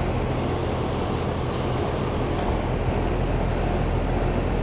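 2013 Trane XB13 outdoor air conditioner running steadily: the condenser fan's rush of air over a low, even compressor hum.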